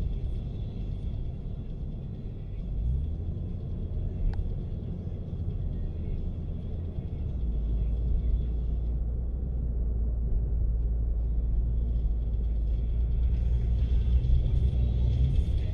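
Low road and engine rumble inside a moving car's cabin while cruising, growing heavier about halfway through.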